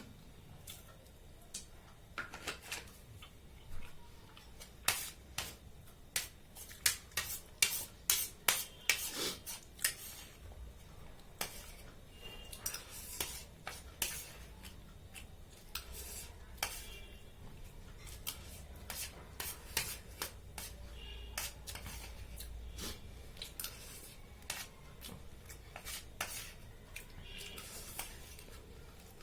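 Cutlery clinking and scraping against a plate as noodles are eaten, in quick runs of sharp clicks that come thickest in the first half and thin out later.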